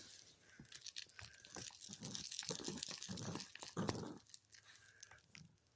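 A puppy growling while tearing and chewing at something crinkly: rapid crackles and rustles, with low growls swelling in the middle and loudest just before the crinkling dies away near the end.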